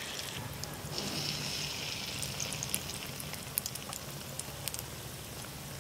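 Rava kachayam batter fritters deep-frying in hot oil in a large aluminium pot: a steady sizzle scattered with small pops and crackles. The sizzle grows louder about a second in.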